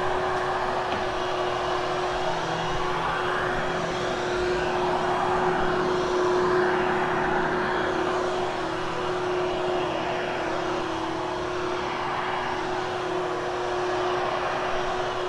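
Hoover HushTone upright vacuum running with a steady hum, its airflow noise swelling and easing every few seconds as it is pushed back and forth over the carpet.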